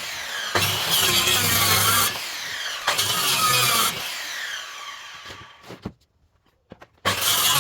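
Electric power tool working wood in repeated loud passes of about a second each, then winding down and stopping for about a second before it runs again near the end.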